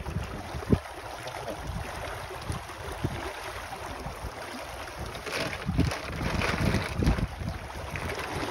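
Wind buffeting the microphone over the rush of water along a sailboat's hull, with a few short knocks. A louder gust of noise comes about five seconds in and lasts a couple of seconds.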